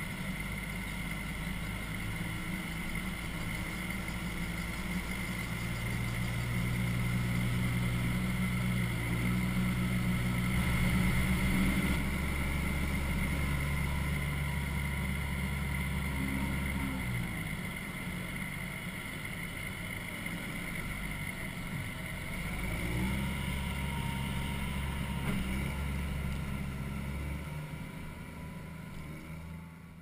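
Case IH tractor engine running under load as it drives a grain cart's unloading auger during wheat unloading, with a steady higher whine over the engine's hum. The engine's pitch shifts a few times, and the sound fades near the end.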